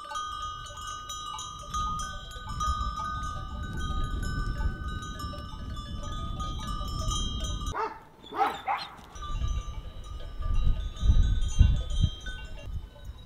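Bells on a flock of sheep and goats tinkling steadily as the animals move, with one bleat about eight seconds in. A low rumble runs underneath and swells near the end.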